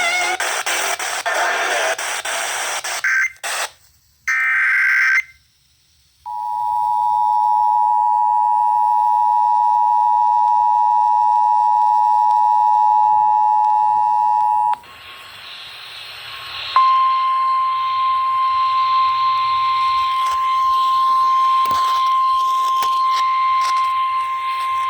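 Emergency Alert System tones over the radio. Station audio stops about three seconds in, and a brief burst of data tones follows. Then comes the steady two-tone EAS attention signal for about eight seconds, and then the steady single-pitch weather radio warning alarm tone (1050 Hz) over hiss for about nine seconds, signalling a flash flood warning.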